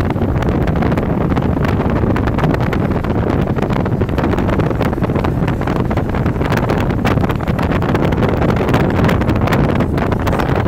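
Wind rushing and buffeting hard against the microphone of a vehicle moving fast on a freeway, over a steady low rumble of road and engine noise.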